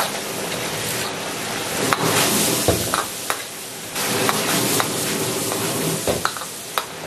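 Thick braising sauce bubbling and sizzling hard in a wok over a high gas flame as it reduces down around chicken and potatoes, with a few short knocks against the wok as it is stirred.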